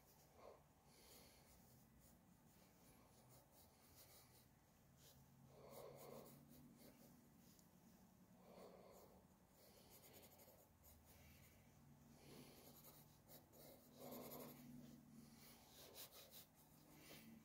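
Faint scratching of a pen nib on sketchbook paper as short drawing strokes are made, coming and going in small clusters.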